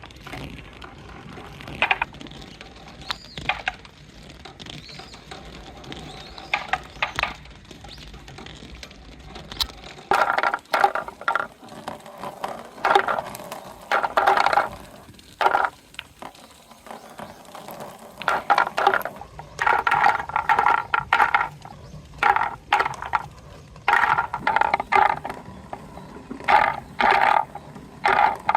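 Large plastic balls rolling through a corrugated bellows hose and knocking against the course, in repeated rattling bursts with sharp clicks and knocks, growing busier and louder from about ten seconds in.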